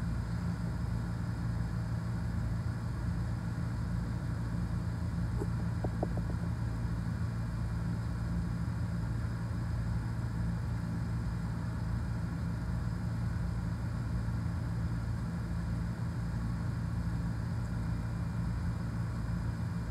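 A steady low mechanical hum that does not change, with a couple of faint ticks about six seconds in.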